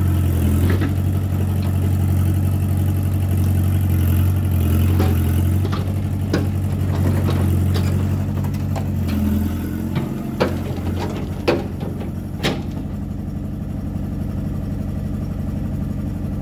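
Mini excavator's diesel engine running at working revs, with several sharp metal clanks; about ten seconds in the engine drops back to a lower, quieter idle.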